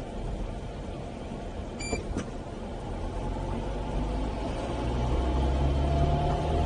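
Car engine and road noise heard from inside the cabin, growing louder after about four seconds as the engine note rises with the car picking up speed. A short electronic beep sounds once about two seconds in.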